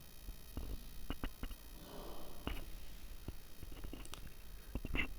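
Chicken pieces deep-frying in hot oil in a kadai: faint, scattered crackles and pops with a few sharp clicks, and a short fizzing burst about two seconds in.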